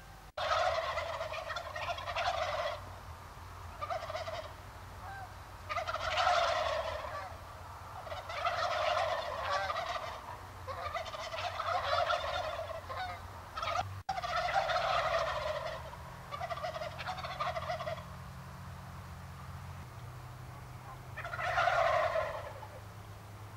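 Wild turkeys gobbling, one loud rattling gobble after another every couple of seconds, with a longer pause near the end. A low steady hum runs underneath.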